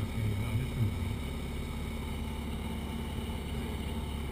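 Idro-Storch floatplane's engine running steadily under power, heard from inside the cockpit as the floats run across the water, with a couple of brief low bumps in the first second.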